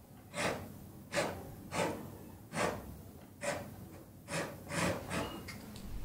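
Soft swishes of a paintbrush working oil paint: about eight short strokes, quicker near the end.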